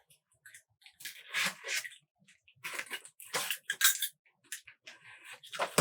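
Handling of plastic packaging and PVC pipe fittings: irregular rustling and clatter in several short bursts.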